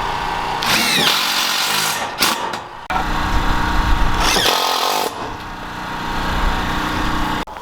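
Power drill running in three long stretches, its pitch sweeping up and down as the speed changes.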